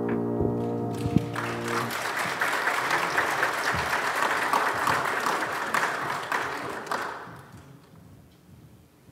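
A piano's last chord rings out, then a congregation applauds for about six seconds, the clapping fading away near the end.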